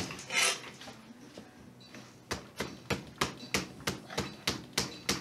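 A short rustle near the start, then from about two seconds in a steady run of sharp clicks, about three or four a second.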